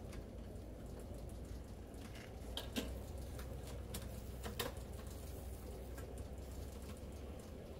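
Charcoal rotisserie grill running: a steady low hum under scattered light ticks and pops, with two louder sharp metallic clicks, about three and four and a half seconds in.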